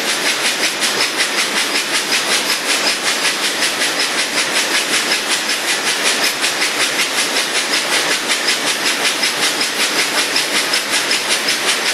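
The engine of a 12-25 Townsend antique tractor running steadily, with an even, hissy exhaust beat about four times a second.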